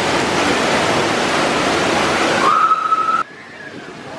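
Steady rush of flowing and falling water from water-park slides. A short held high tone comes in about two and a half seconds in, then the sound drops abruptly to a much quieter background about three seconds in.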